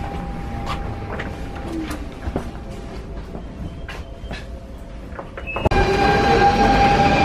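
Inside a Copenhagen S-train car, a steady electrical hum with scattered light clicks and knocks. About five and a half seconds in, it cuts sharply to the much louder sound of an S-train alongside a platform: its electric traction motors whine in several tones that rise slowly as it accelerates, over a low rumble.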